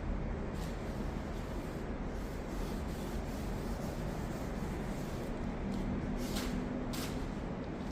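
A rag wiping excess chemical paint stripper off a wooden dresser top, with two short swishes near the end, over a steady low hum.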